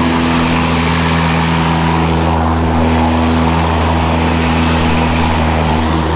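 Toro 60V battery Recycler lawn mower running under load, its electric motor and blade spinning at a steady speed as it self-propels through the grass: an even hum.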